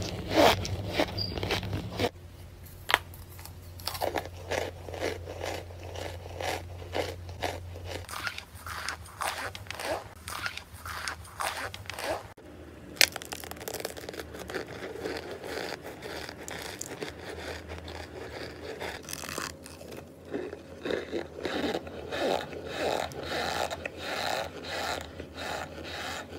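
Close-up crunching and chewing of chalky white chunks such as cornstarch, bitten and ground between the teeth in quick, irregular crunches, with a low steady hum under the first part.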